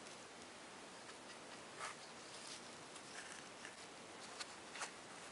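Faint rustling and a few soft taps as a woven rope gasket and stove-door glass are handled on cardboard, over a low steady hiss.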